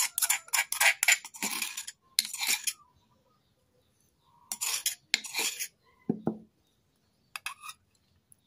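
Metal spoon scraping and clinking against a stone mortar and a ceramic cup while scooping out crushed peanuts: a quick run of scrapes in the first couple of seconds, another short run about five seconds in, and a few light clicks near the end.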